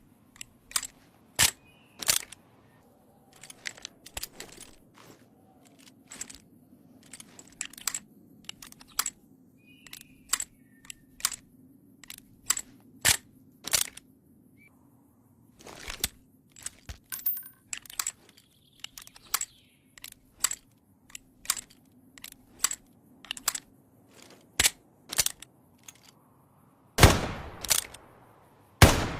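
Schofield revolver sound effects: a long run of sharp, irregularly spaced clicks and snaps, then two loud shots about two seconds apart near the end, each with a ringing tail.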